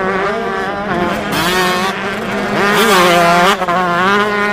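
Motocross dirt bike engine revving as the rider races over the track. Its pitch rises and falls several times, and it is loudest about three seconds in.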